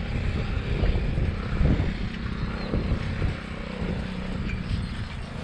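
Wind buffeting the microphone of a camera carried on a moving bicycle, mixed with tyre noise on rough asphalt, with a faint steady hum underneath.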